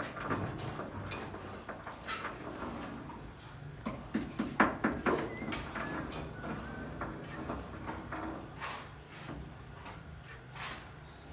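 Scattered sharp knocks and taps, with a quick run of louder ones about four to five seconds in, over a steady low hum.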